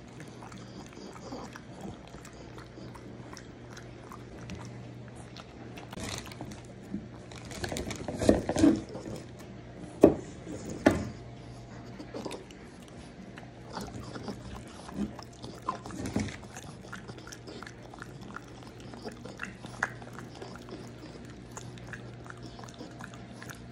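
A French bulldog biting and chewing pieces of apple, a string of sharp crunches and smaller chewing clicks; the loudest crunches come about eight to eleven seconds in and again around sixteen seconds. A faint steady low hum runs underneath.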